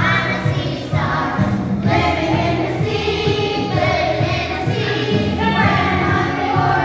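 A chorus of young children singing together over musical accompaniment with steady low bass notes.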